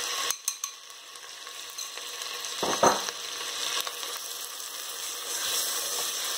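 Onion, ginger and garlic paste frying in hot desi ghee in a stainless steel pressure cooker pan, sizzling as a plastic spoon stirs it. The sizzle dips just after the start as the last of the paste goes in, then builds again. A brief louder clatter comes about three seconds in.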